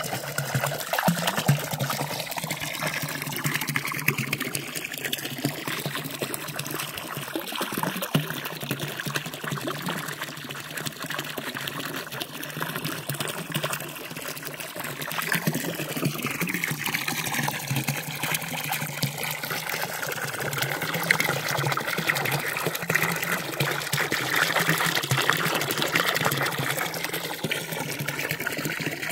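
Water running steadily from a village spring fountain's spout, an even trickling and splashing of flowing water.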